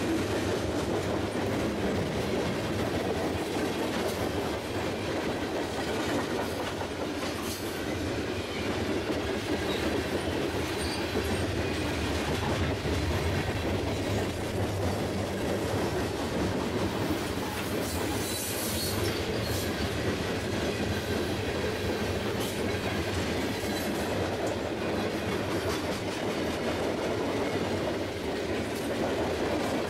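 Freight train of loaded tank cars rolling steadily past at close range: a continuous rumble of steel wheels on rail with clickety-clack over the rail joints. A couple of brief high screeches rise over it, the longest around 18 to 19 seconds in.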